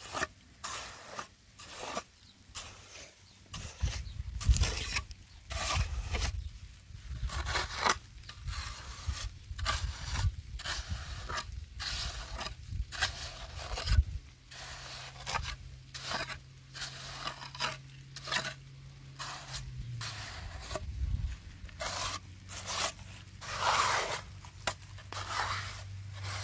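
Steel trowel scraping and smoothing wet cement mortar in repeated short strokes, about one or two a second. A low steady hum runs underneath and drops a little in pitch about two-thirds of the way through.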